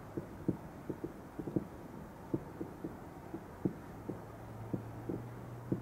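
Distant fireworks going off: a rapid, irregular series of dull thumps, about three a second, over a faint steady hum.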